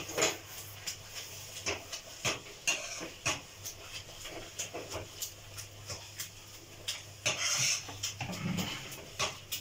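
Metal spoon stirring thick mustard-greens saag in a kadhai, knocking and scraping against the pan in irregular clinks, with a longer scrape about seven seconds in.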